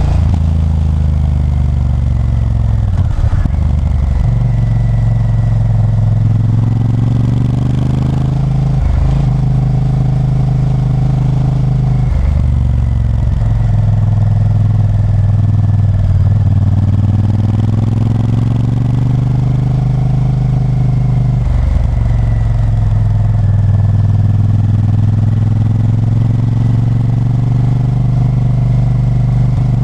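Honda Varadero 1000's 90-degree V-twin engine running under way, its revs rising and falling, with about five short dips in the note.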